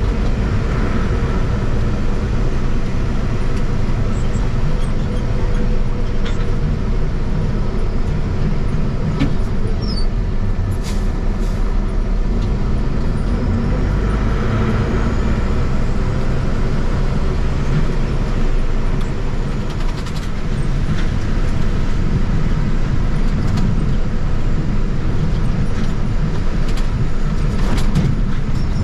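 International truck driving on the road with its trailer: a steady low engine and road rumble that holds even throughout, with a brief dip about twenty seconds in.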